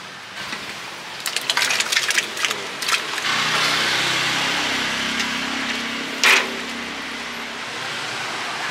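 Metal ladle and bowls clattering against a large steel stockpot, a run of quick clinks in the first few seconds. Then a steady rushing noise with a low hum sets in, broken by one sharp knock a little after the middle.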